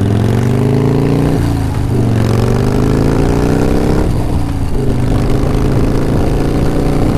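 Harley-Davidson Softail Custom's Evolution V-twin accelerating through the gears. Its pitch climbs, drops sharply with an upshift about one and a half seconds in, climbs again and drops with another shift at about four seconds, then runs steadier.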